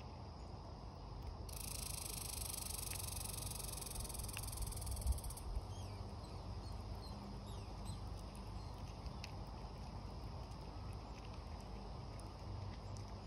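Eastern chipmunk husking sunflower seeds close by: faint small clicks and crackles, with one sharper tap about five seconds in, over steady low outdoor noise. A high hissing buzz sets in about a second and a half in and stops abruptly near the middle, and a few faint chirps follow.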